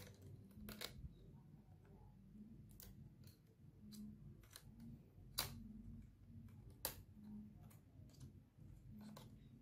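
Faint, irregular small clicks and taps as a thin metal tool and fingertips work at a laptop's open motherboard near the memory module, with two sharper clicks a little after five seconds and near seven.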